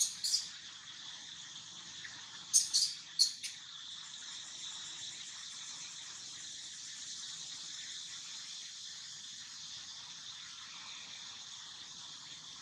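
Steady, high-pitched chorus of forest insects, with a few short, sharp chirps just after the start and a quick cluster of three about two and a half to three and a half seconds in.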